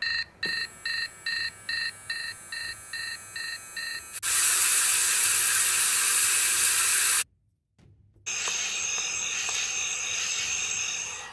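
Electronic alarm beeping in quick, regular pulses, about three a second, each beep a high two-tone pip. About four seconds in the beeping stops and a loud, steady hiss takes over for about three seconds. After a second of silence a softer hiss with faint tones follows.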